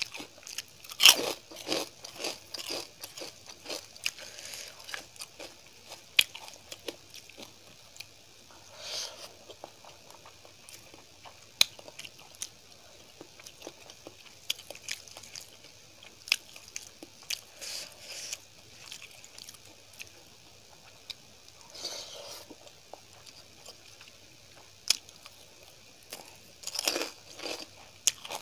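Close-up sounds of a person biting and crunching crisp papad and chewing it with rice and curry: a run of sharp crackly bites about a second in, more crunch bursts later on and a cluster near the end, with soft mouth clicks between.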